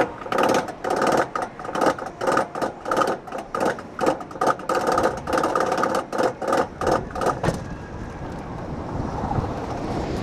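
Bobsled roller coaster's chain lift clanking in a steady rhythm, about three clanks a second with a metallic ring, as the train is hauled up the lift hill. The clanking stops about seven and a half seconds in, leaving a steady rushing noise that slowly grows as the train nears the crest.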